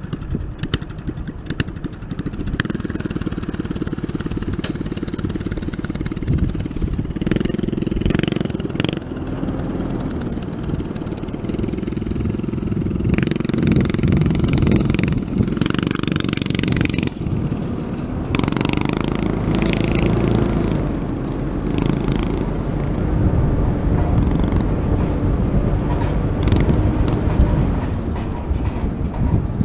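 A vehicle engine running at varying speed, its pitch repeatedly rising and falling, with wind rushing over a hood-mounted microphone.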